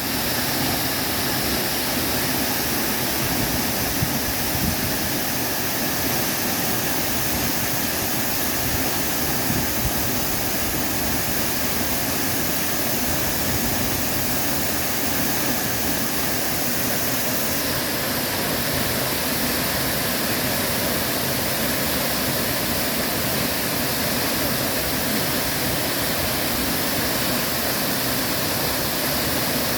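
Waterfall pouring steadily: a loud, even rush of falling water with no breaks.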